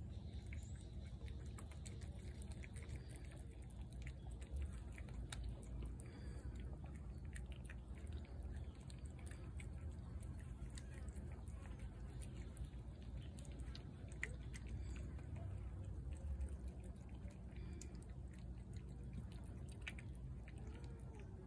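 A cat eating shredded chicken off a plate: scattered small wet clicks and smacks of chewing throughout, over a low steady rumble.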